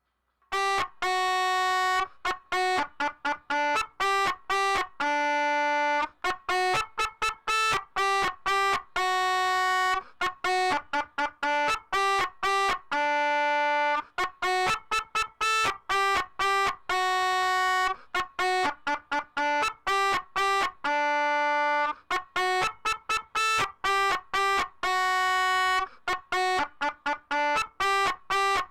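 Solo pianica (melodica) stem playing a repeating riff of short, detached reedy notes, dry with no effects. It enters about half a second in.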